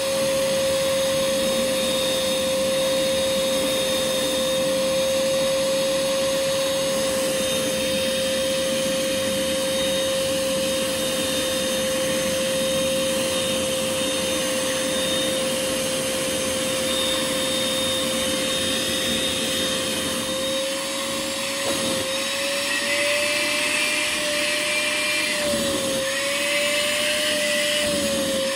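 Portable carpet extractor's vacuum motor running with a steady whine as its hose tool draws over the carpet; about twenty seconds in the whine starts to wobble up and down in pitch.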